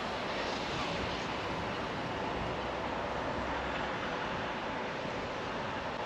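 Steam locomotive standing at the platform about to depart, giving off a steady rushing hiss and rumble.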